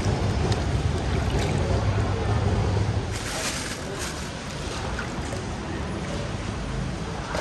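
Water splashing and dripping as grilled bananas are dipped into a bucket of water and lifted out, with a plastic bag rustling about three seconds in. Under it a steady low rumble eases off about three seconds in.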